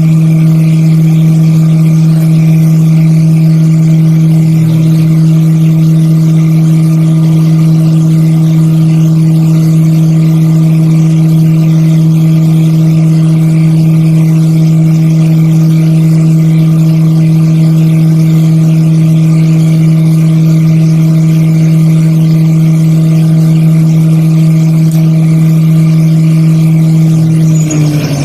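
CNC milling machine's spindle running at a steady speed with a loud, even hum while the cutter chamfers the edges of Corian and acrylic harmonica combs. Near the end the pitch begins to fall as the spindle slows.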